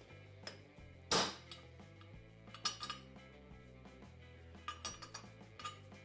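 Hammer tapping a bearing race driver to seat a wheel bearing race in a Jaguar IRS hub carrier: one loud metallic strike about a second in, then lighter clinking taps in small groups. Background music plays underneath.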